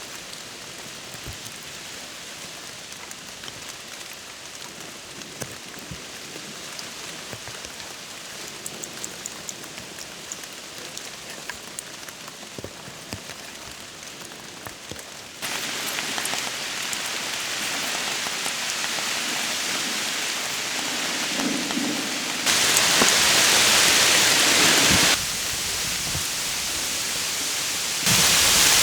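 Steady rain, with separate drops ticking in the first half. It gets abruptly louder about halfway through and louder again toward the end.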